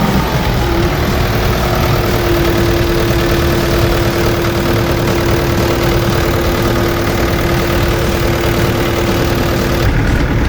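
Kobelco SK75-8 crawler excavator's diesel engine running steadily at idle, with a steady whine that starts about a second in and stops shortly before the end.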